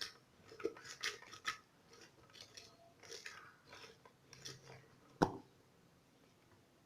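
Lemon halves twisted by hand on the ribbed cone of an electric citrus juicer that is not running, giving faint, irregular squelching and crunching as the flesh is crushed. One sharp knock comes about five seconds in.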